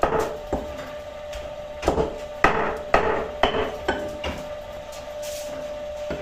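Cleaver chopping roast lamb on a wooden cutting board: a run of about eight sharp chops, roughly two a second, stopping about four and a half seconds in.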